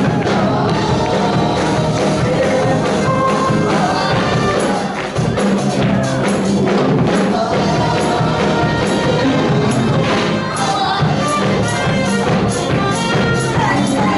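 Live church praise music with a steady beat, tambourine and singing.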